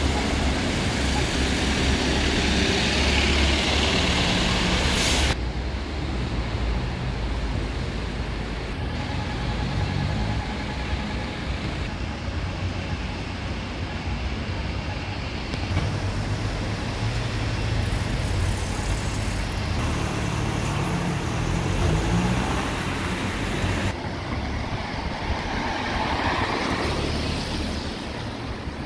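A single-deck bus drives past close by with its engine running, the loudest part, for about the first five seconds. Then quieter street traffic noise follows, with cars passing on a town street.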